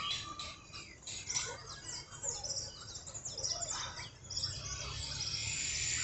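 A flock of birds roosting in a tree, chirping and chattering in many quick overlapping calls, with a steady high-pitched buzz joining near the end.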